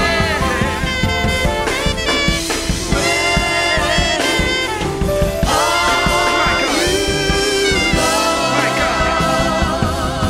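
Live gospel worship singing: several vocalists on microphones, with a lead voice sliding through runs and vibrato, over keyboard and bass guitar accompaniment.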